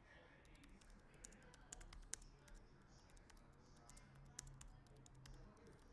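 Faint, irregular clicking of typing on a computer keyboard.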